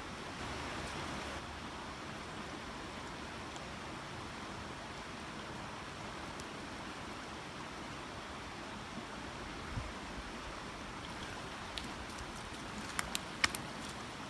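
Small creek flowing steadily over rocks, with a few short sharp clicks a little before the end.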